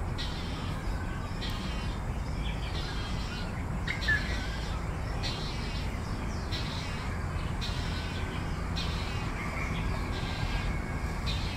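Malayan night heron fledgling giving harsh, rasping begging calls, roughly once a second, over a steady low background rumble. One short, sharper call about four seconds in.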